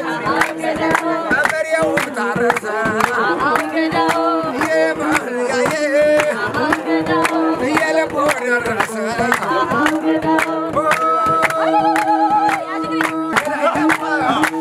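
Ethiopian folk dance song: voices singing together over steady rhythmic hand-clapping.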